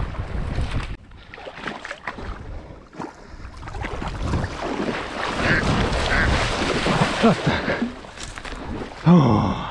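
Water splashing and dry reeds rustling as someone moves through a flooded reed bed, with wind buffeting the microphone. A brief loud call sounds near the end.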